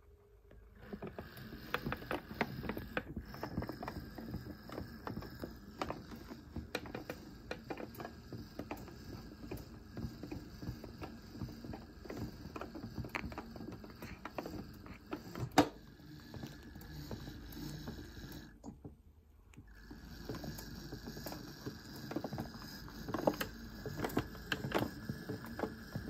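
1970s Casdon toy washing machine on its main wash: its small electric motor turns the drum with a thin steady whine, while soapy water sloshes and small parts click and knock. It starts up about a second in, stops for about a second about three-quarters of the way through, then starts again.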